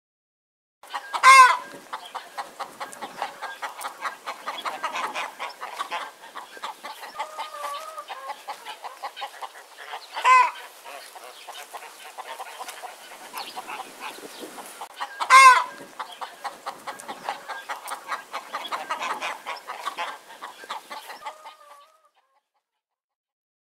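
Chickens clucking, a steady run of quick clucks broken by three short, loud calls: one about a second in, one near the middle and one about two-thirds of the way through.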